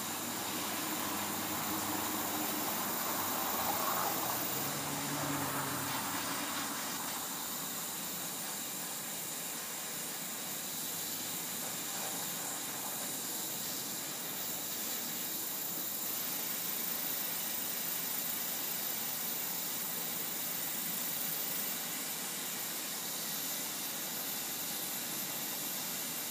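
Propane torch flame hissing steadily while it heats a fluxed copper solder joint.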